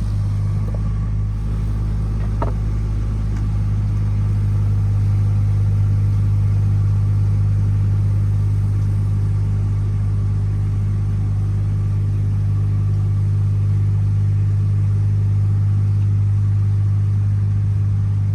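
An engine running steadily at a constant speed, a deep even hum with no change in pitch.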